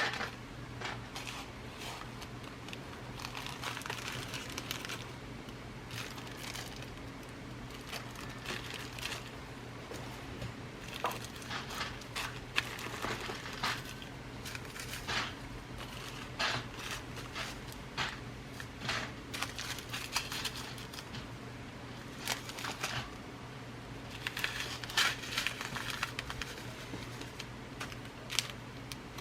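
Glass seed beads being rummaged through by hand: crinkly rustling of their packaging with scattered sharp clicks, over a steady low hum.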